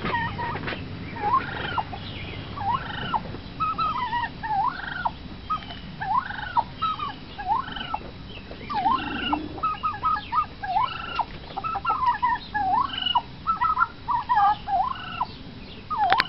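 Domestic turkeys calling over and over: short calls that each rise and fall in pitch, about one a second, mixed with runs of quicker, choppier notes.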